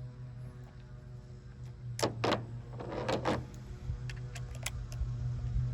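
Screws being run back into a truck's plastic bed liner with a power driver in short bursts, among clicks and knocks of tools and parts, over a steady low hum.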